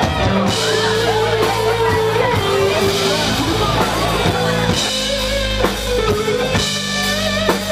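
Rock music played on electric guitar and drum kit, loud and continuous.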